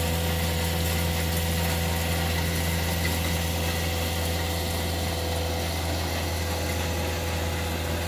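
CAT 259D3 compact track loader's diesel engine running steadily at idle, an even drone with no revving.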